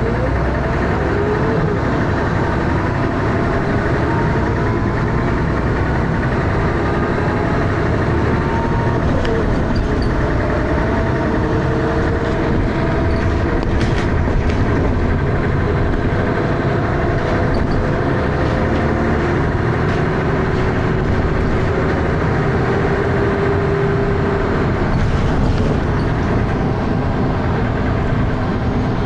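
Dennis Arrow double-decker bus on the move, its engine running with lots of thrash and whining tones that glide and shift in pitch as it changes speed.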